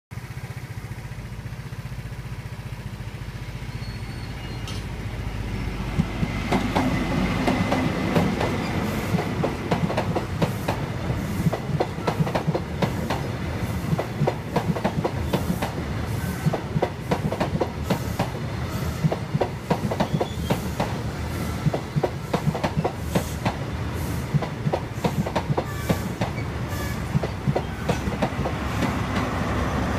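Train passing: a low rumble as it approaches, then from about six seconds in a rapid, continuous clatter of wheels over the rail joints as the cars go by.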